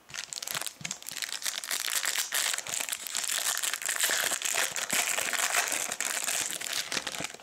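Foil trading-card pack wrapper crinkling and crackling steadily as it is torn open and handled.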